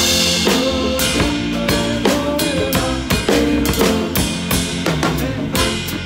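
Drum kit played in a live band, heard close up from the kit: snare, tom and cymbal strokes keeping a steady beat over bass and a pitched melody line.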